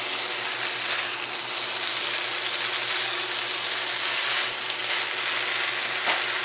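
Beef and broccoli sizzling in a nonstick wok while a spatula stirs through it, scraping along the pan now and then, loudest about four seconds in.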